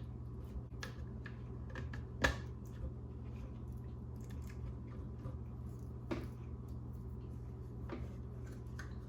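Small plastic clicks and handling rattles as dash-light bulb sockets and their caps are fitted into a Ford truck instrument cluster, with a sharper click about two seconds in and a few more later. A low steady hum runs underneath.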